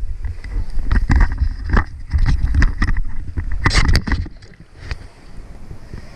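Wind buffeting the microphone in an uneven low rumble, with several sharp knocks in the first few seconds; it eases off after about four seconds.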